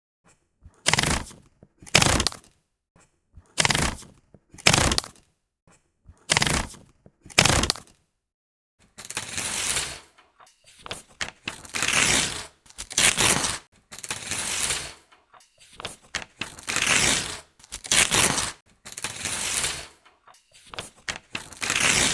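Paper being torn from a notepad: six short, quick rips in pairs over the first eight seconds, then a series of longer, slower tears of about a second each.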